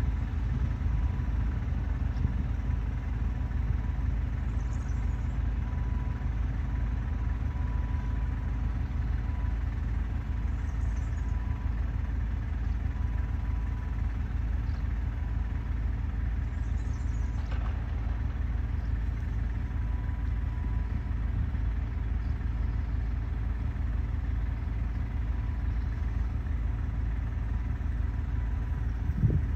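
Steady low engine rumble, like a motor idling.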